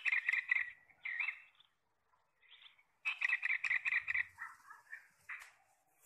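Bulbul calling in bursts of rapid chattering notes: one bout at the start, a longer one about three seconds in, and short single calls between.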